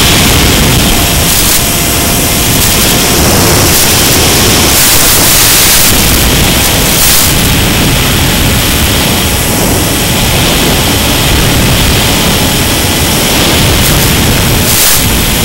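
Loud, steady hiss of static from an analog FPV video link's audio channel, with a few brief surges of louder hiss.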